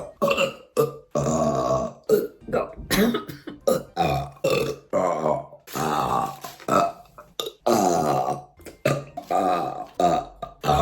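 A woman burping again and again: a quick run of short belches with a few longer, drawn-out ones about a second long.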